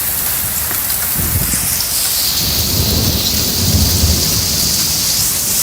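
Heavy rain hissing steadily, with a low roll of thunder from about a second in, loudest around three to four seconds, then fading; the rain grows louder over the second half.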